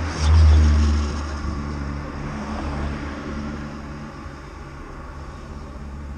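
Motor vehicle engine and road rumble in street traffic, loudest about half a second in, with a steady engine hum that fades away over the next few seconds.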